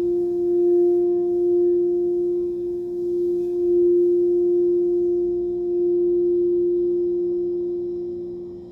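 Frosted quartz crystal singing bowl played around the rim with a mallet: one steady, pure sustained tone with a fainter overtone above it, swelling and easing in volume. It dips briefly near the end, then builds again.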